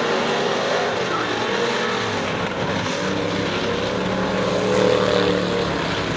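Several dirt-track stock car engines running hard in a race, their pitches rising and falling as the cars go around the oval, growing a little louder about five seconds in as a car comes by.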